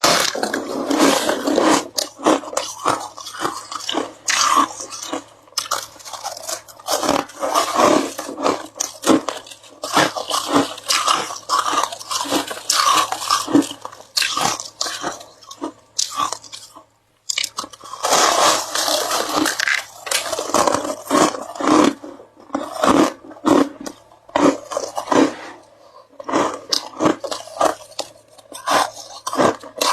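Ice being bitten and chewed close to the microphone: dense, irregular crunching that goes on throughout, with one short break about seventeen seconds in.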